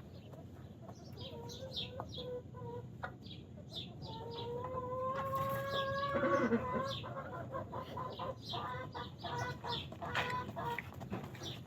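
Chickens clucking and chirping in a farm barn: many short calls, with one long drawn-out call from about four seconds in.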